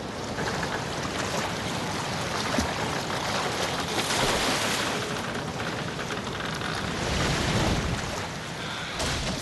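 Sea and wind: a steady rushing wash of waves that swells around the middle and again near the end.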